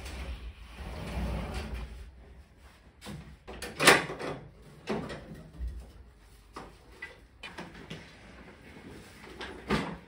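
Knocks and clatter of work on a floor-standing air conditioner being installed: tools and parts handled, with a sharp knock about four seconds in and another near the end.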